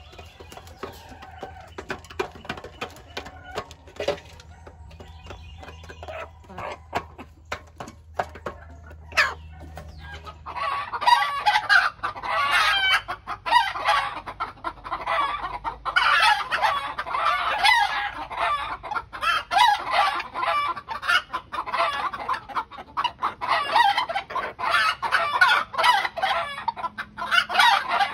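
Flock of Bengal fowl, grey junglefowl × domestic chicken hybrids, clucking and calling. The first stretch is quieter with scattered light clicks. About ten seconds in, dense, loud clucking takes over and continues without a break.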